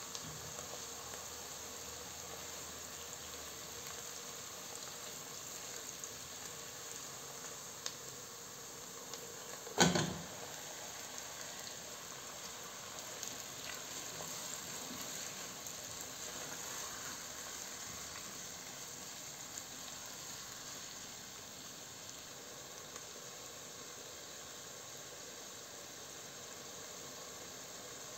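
Chopped onion, chili and tomato cooking in olive oil in a pot, with a steady soft sizzle. About ten seconds in there is a single sharp, loud knock.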